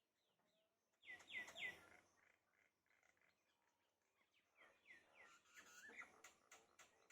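Common mynas calling faintly: a quick run of three down-slurred whistled notes about a second in, then after a lull more chattering notes mixed with clicks.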